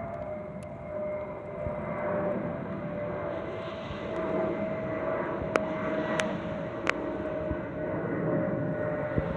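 A steady high whistle from the Airbus A319-114, holding close to one pitch, over the aircraft's cabin rumble. Three sharp clicks come in the middle.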